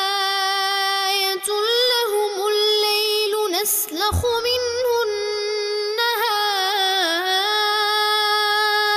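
A man's voice in melodic Quran recitation (tajwid), held high in one long unbroken phrase with wavering, ornamented turns of pitch.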